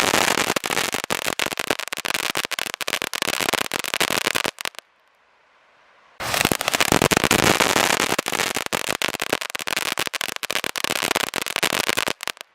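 Silver dragon firework fountains: a dense spray of rapid crackling pops over a hiss. It stops suddenly about four and a half seconds in, starts again after about a second and a half of quiet, and stops again near the end.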